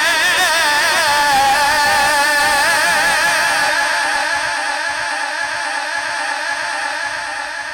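A man's voice in melodic Quran recitation (tilawat), drawing out one long, ornamented phrase with a wavering pitch. It trails off over the last few seconds as the phrase ends.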